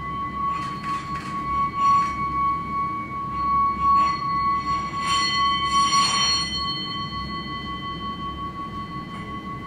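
A metal singing bowl ringing with one steady, sustained tone and fainter higher overtones, played as live accompaniment. Several short swishing or rustling sounds come and go over the first six seconds or so.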